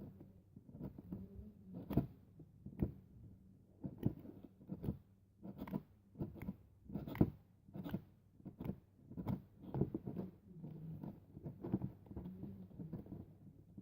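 Slime being squeezed and kneaded, making irregular wet clicks and squelching pops about one or two a second.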